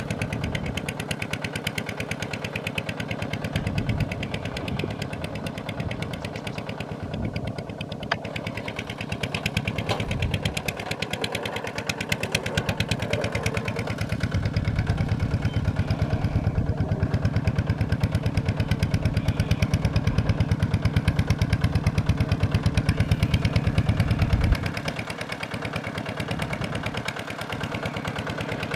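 Diesel engine of a Kubota farm machine running steadily with a fast, even firing pulse. It grows louder from about halfway through, then drops back suddenly near the end.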